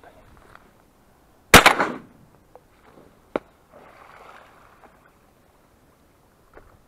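A single shotgun shot about one and a half seconds in, very loud with a short ringing tail, followed about two seconds later by one sharp, much quieter click.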